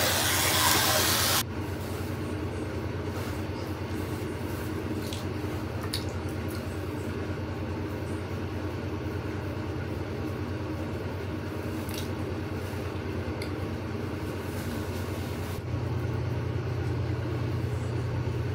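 Electric toothbrush motor running with a steady buzzing hum. A loud hiss cuts off about a second and a half in, and the hum grows slightly stronger near the end.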